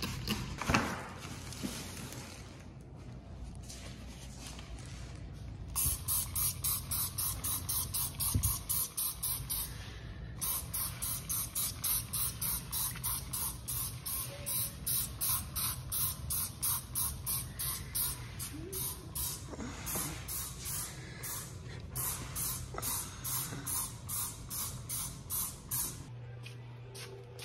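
Hand-held trigger spray bottle squirting cleaner onto a mirror in fast runs of short hissing squirts, about two to three a second, starting a few seconds in with a brief break about ten seconds in.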